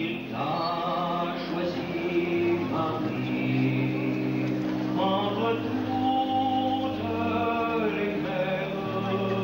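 Slow hymn singing by male voices and a choir, each note held for about a second before moving to the next.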